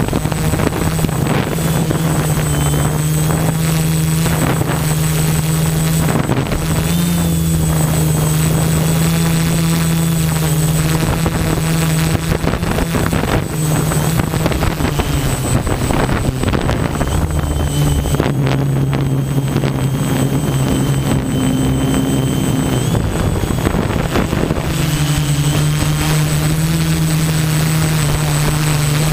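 Multirotor drone's electric motors and propellers buzzing steadily in flight, heard close up from a camera mounted on the drone. The pitch drops for several seconds past the middle and rises back near the end, as the motors change speed.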